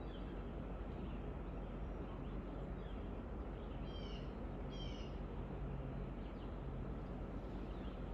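Birds chirping faintly over a steady low background rumble, with two clearer short chirping calls of several quick descending notes about four and five seconds in.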